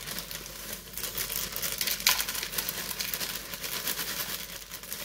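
A plastic cereal bag liner crinkling while dry flakes and clusters pour and rattle into a bowl in many small clicks, with a louder rustle about two seconds in.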